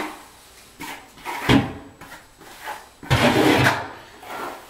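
A hand trowel scraping and spreading thin-set mortar across a floor, in a few separate strokes; the longest, loudest stroke comes about three seconds in.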